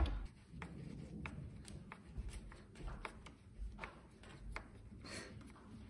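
Faint, scattered clicks and light metallic taps of screws and hand tools being handled as the screws are fitted back into a scooter's variator cover.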